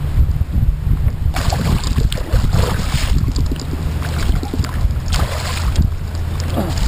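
Several bursts of splashing as a hooked northern pike thrashes at the surface beside a kayak and is brought into a landing net, over a steady low rumble of wind on the microphone.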